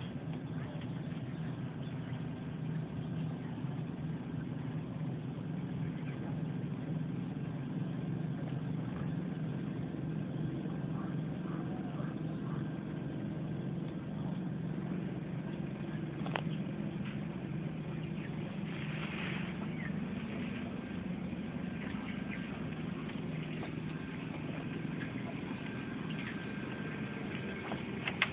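A steady low mechanical hum, with a few faint clicks and a brief higher hiss about nineteen seconds in.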